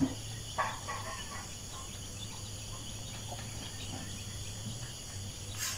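Steady outdoor background: a faint, even chirring of insects such as crickets over a low steady hum, with a few faint ticks.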